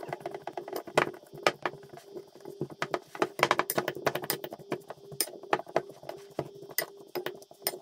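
Metal fork crushing boiled baby potatoes in a glass bowl, its tines clicking and knocking against the glass in quick, irregular taps, over a faint steady hum.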